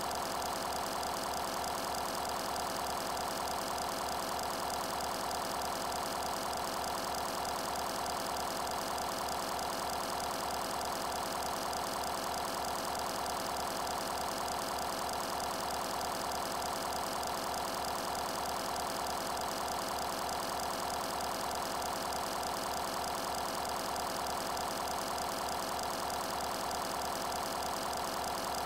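A steady mechanical hum with a fast, even pulse, like a running motor or engine, unchanging throughout.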